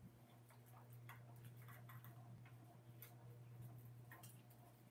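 Faint, irregular sticky clicks and small pops of butter slime being kneaded and squished between bare hands, over a steady low hum.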